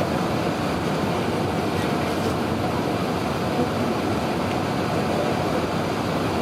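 Steady roar inside an airliner cabin: engine and airflow noise.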